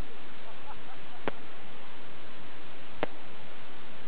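Two sharp firework cracks, a little under two seconds apart, over a steady hiss.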